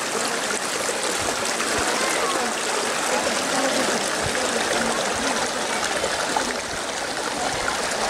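Steady rush of running water, like a stream or mill channel flowing, with faint voices under it.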